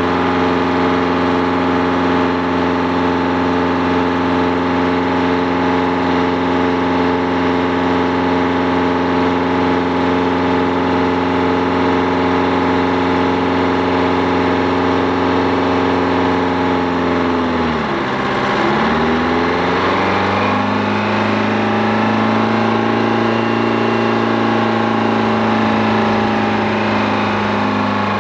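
Crane engine running at a steady speed. About eighteen seconds in its pitch drops sharply, then it picks back up and settles at a slightly lower steady speed.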